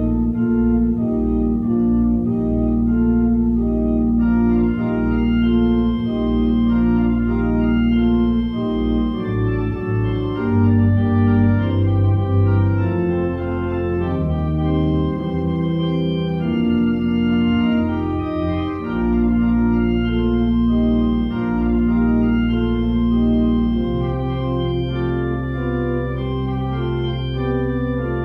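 Church organ playing: sustained chords over long-held deep pedal notes, with faster-moving notes above.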